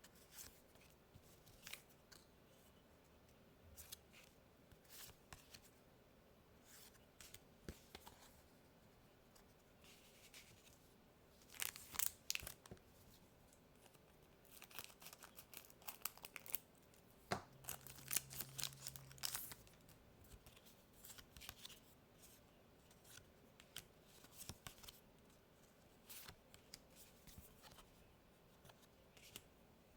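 Foil Pokémon card mini booster packs being torn open and crinkled by hand: scattered short rustles and tears, with the loudest bursts of tearing about twelve seconds in and again around eighteen to nineteen seconds.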